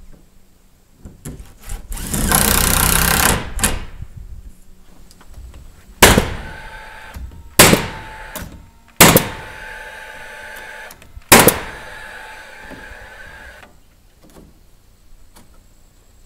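Nail gun firing four times, driving nails into the wooden framing of the greenhouse air-intake openings; the shots come a second or two apart, each a sharp bang with a short fading ring. About two seconds in there is a second-long rush of noise.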